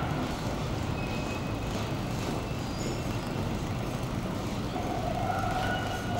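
Steady city street ambience with a low rumble of distant traffic. About five seconds in, a short held tone rises over it.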